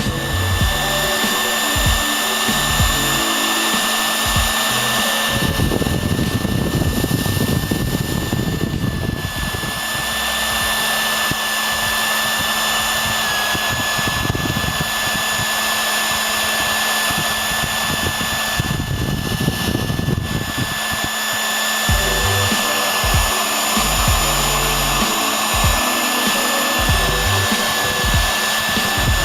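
Hair dryer running steadily: a constant rush of air with a high, steady motor whine, and an uneven low rumble underneath.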